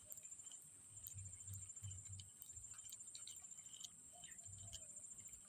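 Near silence: a faint, steady high-pitched insect drone with scattered soft ticks.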